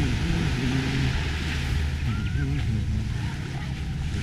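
A steady low rumble under an even hiss, with faint voices in the background.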